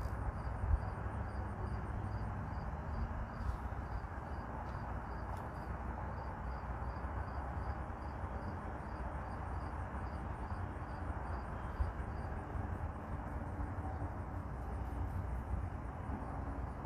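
Steady low rumble and hiss of background noise, with a faint high ticking about twice a second.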